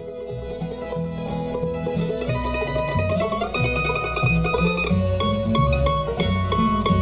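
Bluegrass band playing an instrumental break, with banjo and guitar picking over a bass line; the music cuts in suddenly at the start.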